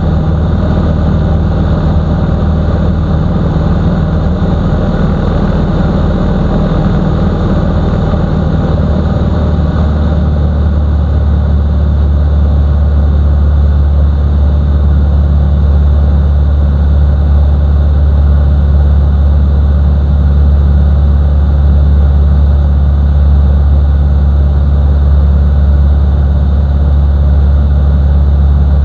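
Single-engine propeller of a Mustang II light aircraft heard from inside the cockpit in flight: a loud, steady engine and prop drone. About ten seconds in the note shifts deeper and grows slightly louder, then holds steady.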